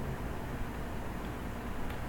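Steady low hum and hiss of room noise on the microphone, with one faint click near the end.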